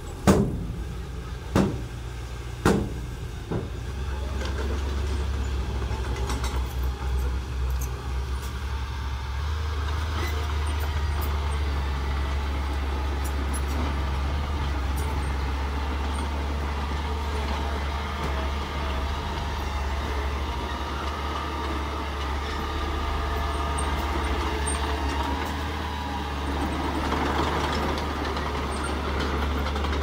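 Engines of a dump truck and a small bulldozer running steadily, with four heavy bangs in the first few seconds while the raised truck bed tips out its load of dirt.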